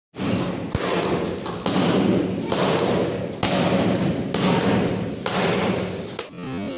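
Taekwondo roundhouse kicks smacking handheld kick paddles, six sharp strikes at a steady pace of about one a second, each with a short ringing decay in the hall.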